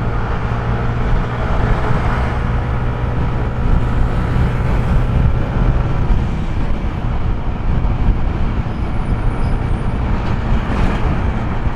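Motor scooter riding along: a steady engine drone under road and wind noise, heard from the rider's helmet camera.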